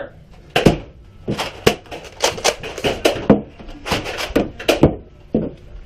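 A run of about a dozen sharp clacks and knocks at an uneven pace.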